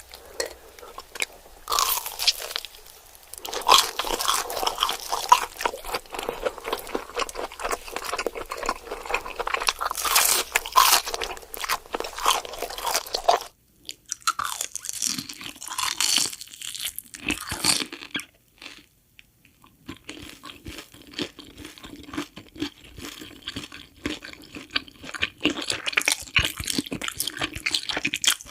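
Close-miked crunching and chewing of cheese fingers: dense crisp crackles from bite after bite. There are two short pauses past the middle, and the chewing is softer after them.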